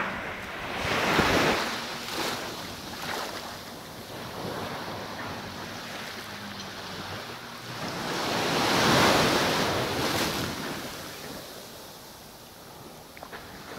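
Small surf washing onto a sandy beach, swelling louder about a second in and again around nine seconds, with wind on the microphone.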